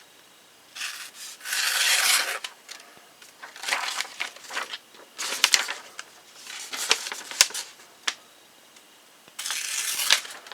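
Kershaw Filter folding knife slicing through a sheet of copy paper in a paper sharpness test: about five separate hissing cutting strokes, each under a second or so, with short pauses between.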